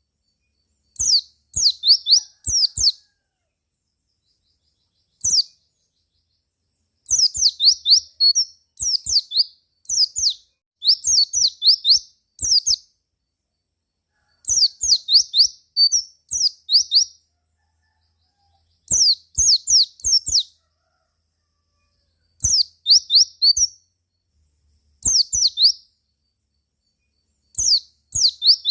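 White-eye (pleci) calling in short, rapid phrases of high, quickly falling chirps, each phrase about a second long with gaps of a second or two between them.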